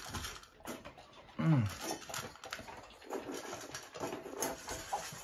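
A dog eating dry kibble from a stainless steel bowl: quick crunching and clicking of kibble and teeth against the metal bowl, with a brief low grunt about a second and a half in.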